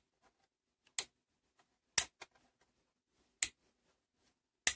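Laser pointer switch on a Scheppach DP19 Vario drill press being clicked on and off, with the spindle motor not running. There are four sharp clicks about a second apart.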